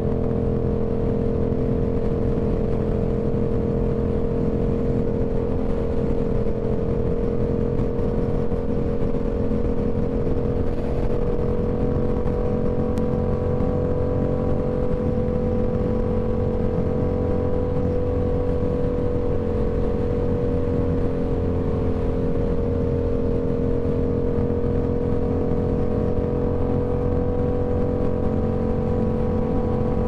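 Yamaha R7's parallel-twin engine pulling steadily at highway cruising speed, carrying a rider and a passenger. The note holds almost constant, rising a little about halfway through and easing back after.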